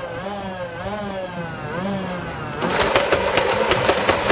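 Nerf Rival Nemesis flywheel blaster's motors whining, the pitch rising and falling about twice a second. From a little before three seconds in, a rapid clatter of sharp hits comes over the whine.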